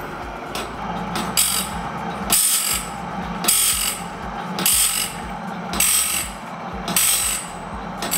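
Bandsaw blade sharpening machine running: the grinding wheel touches a tooth about once a second, giving a short rasping hiss each time, over a steady motor hum and the clicking of the feed mechanism as it advances the blade tooth by tooth.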